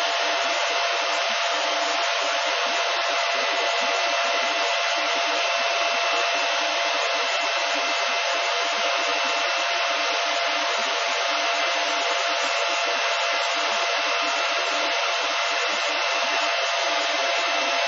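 Cooling fans of a Silverfish 28MH Litecoin ASIC miner running steadily while it mines: an even, loud rush of air with a steady low hum and a higher whine held inside it.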